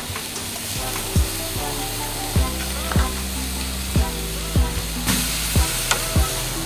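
Filet mignon steaks sizzling as they are laid with tongs on a hot charcoal grill grate; the sizzle grows louder about five seconds in as another steak goes on. Background music with a steady drum beat and bass plays throughout.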